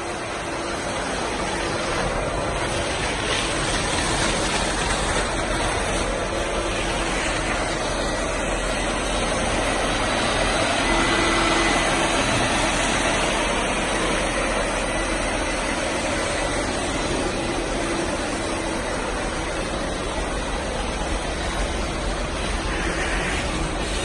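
Husqvarna W70P industrial wet vacuum running steadily, its motor drawing water and concrete slurry off the floor through a squeegee floor nozzle and hose as a continuous rushing noise.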